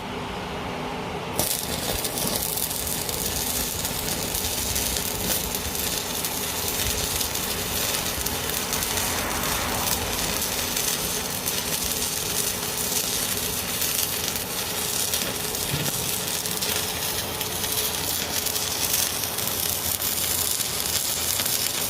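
Electric arc welding on the steel axle hanger: a steady, sizzling crackle that starts abruptly about a second in and runs without a break.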